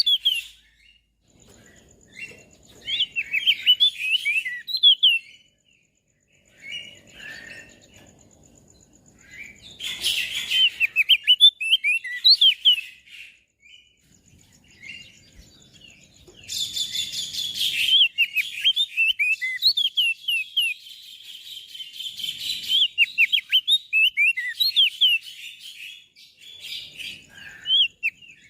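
Crested white-eye (opior jambul) singing: bursts of rapid, high, sharply sweeping chirps with short pauses between phrases, including a couple of harsher, noisier bursts. A faint thin high tone with a fine pulse runs underneath for much of the time.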